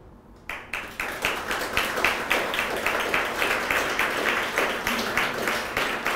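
Audience applauding, starting about half a second in after a brief hush.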